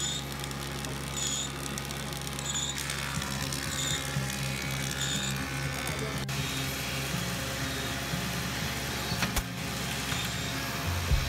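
Steady workshop machine hum with a faint high beep about every second and a quarter for the first five seconds, and a few sharp knocks later on as wooden cabinet panels are handled.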